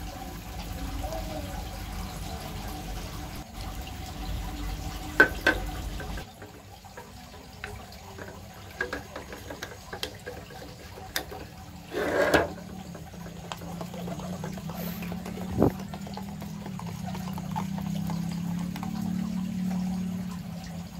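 Paint thinning liquid poured from a metal tin into a plastic cup, stopping about six seconds in, followed by scattered clicks and knocks of tin caps being handled and screwed shut. In the last few seconds the mix is stirred in the plastic cup with a steel ruler, a steady low scraping sound.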